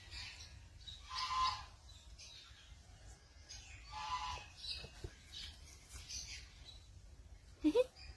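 Pet birds chirping and calling: scattered short, high chirps throughout, with two louder calls about a second in and about four seconds in.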